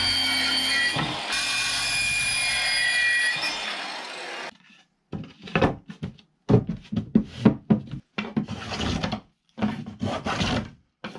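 Handheld circular saw cutting through a wooden board, its motor whining steadily, then fading out about four seconds in. After a short gap comes a run of quick, short strokes of a Japanese hand plane (kanna) shaving the board to thickness.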